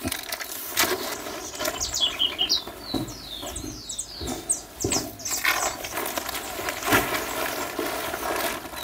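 Blue plastic tarp rustling and crinkling in loud strokes as it is dragged by its corners to fold over and turn a pile of damp bokashi compost mix. Birds chirp in quick falling notes in the background.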